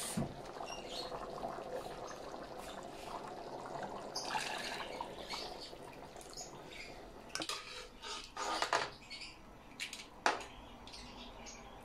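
Water poured from a bowl into a simmering pan of chicken and chickpea curry, with liquid sloshing as a metal spatula stirs it. Several sharp knocks of the spatula against the pan come in the second half.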